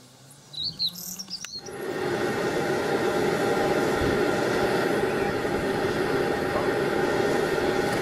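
Oil pouring into a tall square quench tank, its pitch rising as the tank fills, with a few bird chirps. About two seconds in this cuts to the loud steady roar of a running forge.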